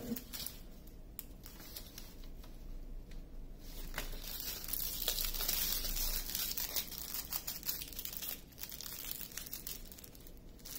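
Small plastic bags of diamond painting drills crinkling as they are handled and set down, with scattered light clicks. The crinkling is louder in the middle few seconds.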